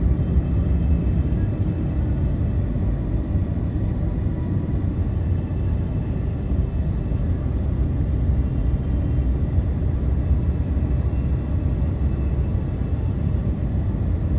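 Vehicle driving at road speed: a steady low rumble of engine and tyre noise.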